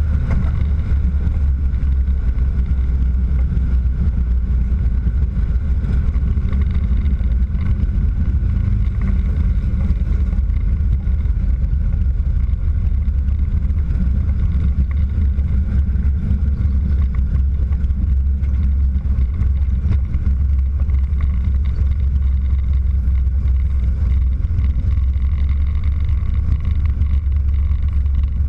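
Christen Eagle biplane's piston engine and propeller running steadily at low power while taxiing, a constant deep drone.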